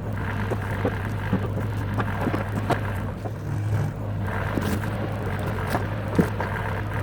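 Bobcat skid-steer loader engine running steadily, with scattered knocks and clunks over it as logs are handled.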